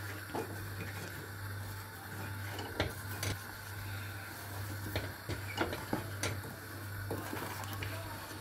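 Wooden spoon stirring thick, reduced milk in a stainless steel saucepan, knocking and scraping against the pan in irregular short taps, over a steady low hum. The milk is cooking down toward palkova consistency.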